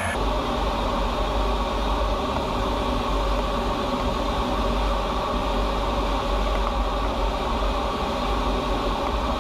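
Steady engine and airflow noise heard inside an F-15 fighter's cockpit in flight. It is a constant, heavy, low noise that starts abruptly at the beginning.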